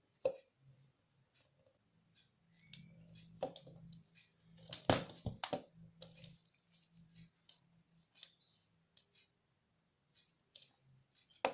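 Scattered light clicks and taps of small parts and wires being handled during wiring work, the loudest cluster about five seconds in. A faint low hum runs for a few seconds in the middle.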